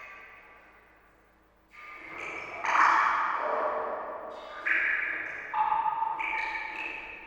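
Water drops plinking one after another, each a short pitched drip that rings and fades. After a lull of a second or so, about six drops fall at uneven intervals, the loudest about three seconds in.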